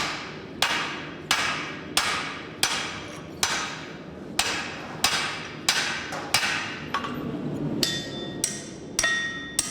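Steady forging blows on hot steel over an anvil, struck with the poll of an axe used as a hammer, about one and a half blows a second. Near the end each blow leaves a short metallic ring.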